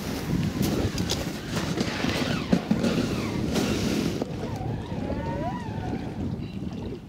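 Wind buffeting the microphone, with a few sharp knocks, for about four seconds. Then the wind noise drops abruptly and a few wavering, gliding tones are heard.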